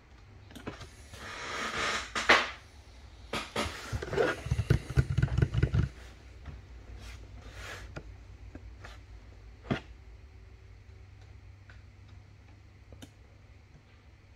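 Hand handling noises at a table: a rustle and a few knocks, then a run of low bumps about four to six seconds in, followed by scattered light ticks and one sharp click near ten seconds.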